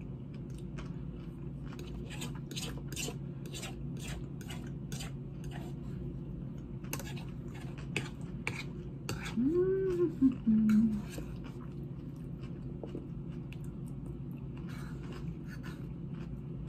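Utensil clicking and scraping against a dish while salad is eaten, with soft chewing, over a steady low hum. About ten seconds in, the eater gives a short hummed vocal sound that rises and falls in pitch.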